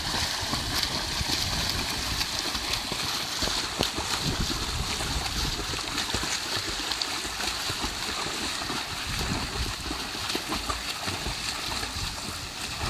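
Swimmers splashing through a pool, arm strokes and kicks churning the water in a continuous, even splashing.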